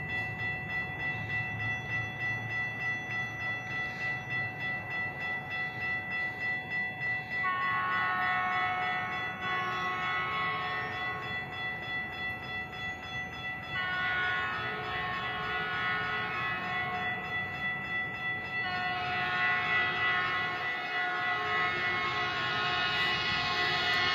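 Approaching Metrolink commuter train sounding its horn in long blasts from about a third of the way in, growing louder as it nears. Under it runs a steady ringing that pulses about twice a second.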